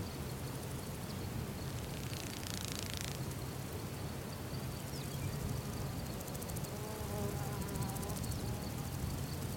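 Insects buzzing over a steady low rumble, with a faint repeating high ticking and a short faint pitched call around seven seconds in.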